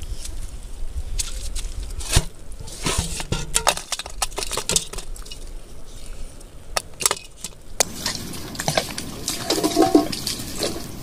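Water splashing and sloshing, broken by many irregular sharp clicks and knocks.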